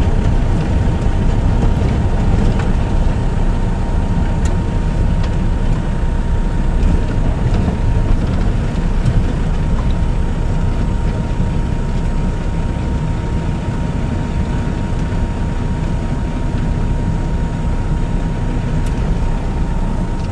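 Pickup truck running at low speed, heard from inside its cab: a steady low engine and road rumble, with a thin steady high tone over it.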